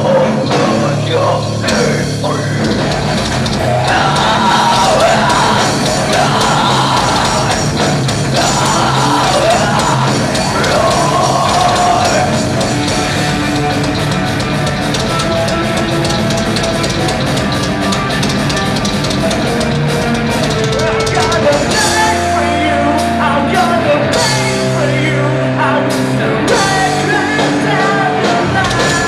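Live rock band playing a song with drum kit and a singer; the singing gives way to an instrumental passage of held, stepping instrument notes about halfway through.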